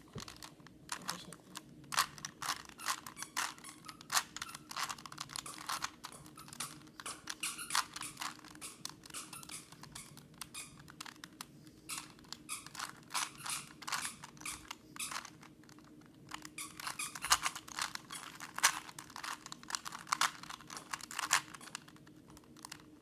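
Rubik's Cube being twisted by hand: an irregular run of quick plastic clicks and rattles as its layers turn, with a few brief pauses.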